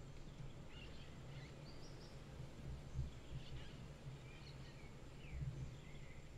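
Faint scattered bird chirps and short calls over a low rumble.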